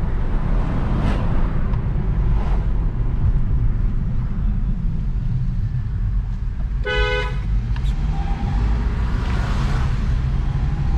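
Steady low rumble of a car driving, heard from inside the cabin, with one short horn toot about seven seconds in.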